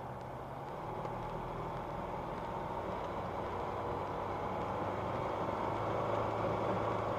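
Flight Design CTSW's Rotax 912 four-cylinder engine idling steadily on the ground just after start, heard from inside the cockpit as a steady low hum that slowly grows a little louder.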